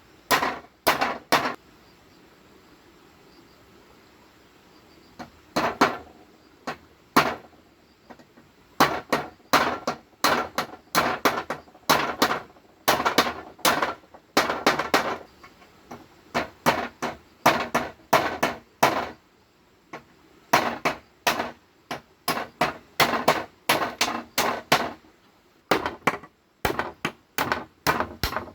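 Repeated sharp blows on bamboo, coming in quick runs of several strikes, each with a short ring. There is a pause of a few seconds near the start, then nearly steady runs of blows.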